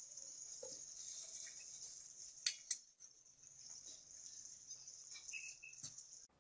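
Steady high-pitched insect chirring, with two sharp metallic clinks about two and a half seconds in as steel milk pots are handled.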